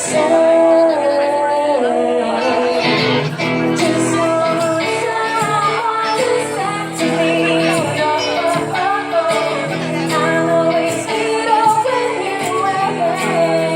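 Live acoustic performance: female vocals singing a melody over acoustic guitar strumming.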